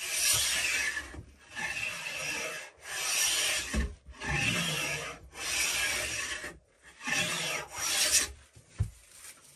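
Record No. 7 jointer plane taking six long strokes, about a second each with short gaps between, along the edge of a hard, dense hardwood board. The freshly restored plane is cutting shavings cleanly. A light knock comes near the end.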